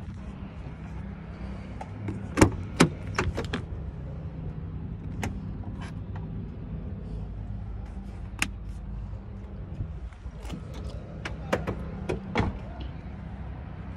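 Clicks and knocks of an Isuzu NPR box truck's cab door being handled: latch, handle and door clicks in a cluster about two seconds in, a few single clicks, and another cluster near the end, over a steady low hum.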